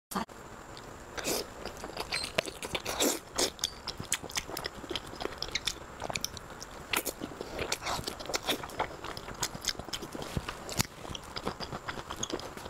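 Close-miked mouth sounds of someone biting and chewing soft braised pork belly: a steady run of short smacks and clicks, a few louder ones scattered through.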